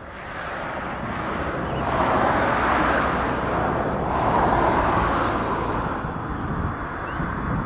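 Steam locomotive approaching under power with a train, its exhaust a steady rushing noise that grows louder over the first couple of seconds and swells twice.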